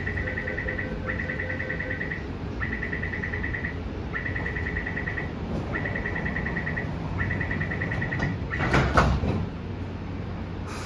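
Rapid high-pitched door-closing warning beeps from a Bombardier Innovia APM 256 people-mover train and its station, sounding in about seven bursts of roughly a second each over a steady low hum. Near the end the train doors and platform screen doors shut together with a loud thump.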